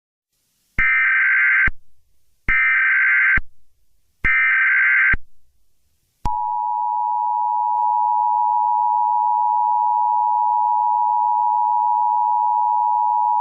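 Emergency Alert System broadcast tones: three short bursts of SAME header data tones, each about a second long, then, about six seconds in, the steady two-tone EAS attention signal.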